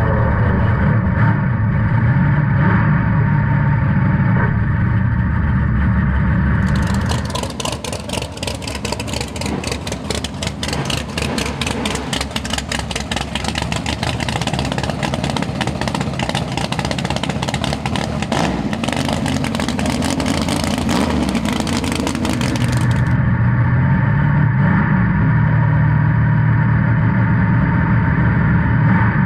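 1988 Mustang drag car's engine idling with a steady low drone, heard from inside the cabin. From about seven seconds in, the same engine is picked up outside the car, sharper and full of rapid clicks. Near twenty-three seconds it switches back to the in-cabin idle.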